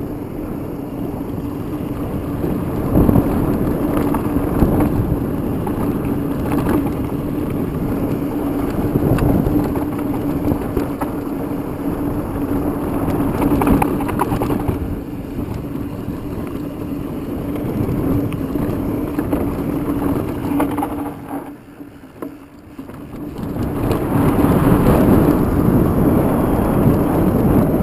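Mountain bike riding down a dirt singletrack: wind buffeting the microphone, tyres rolling over dirt and the bike rattling over bumps, with a steady low hum under it. The noise drops briefly about three quarters of the way through, then comes back louder.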